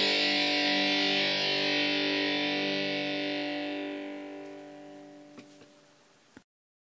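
Rock backing track ending on a held distorted electric-guitar chord that slowly fades away. A few faint clicks come near the end before the sound cuts off to silence about six seconds in.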